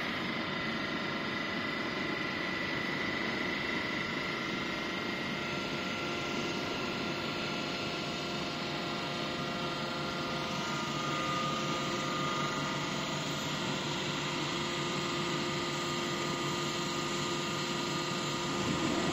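Hydraulic power unit running steadily, driving the cylinder that strokes the gate of a 36-inch hydraulic sandwich valve closed. An even mechanical hum with a few held tones, a little louder near the end.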